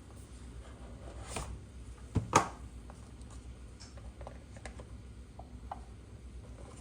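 Objects being handled: scattered light clicks and taps, a soft rustle, and one sharp, louder knock a little over two seconds in.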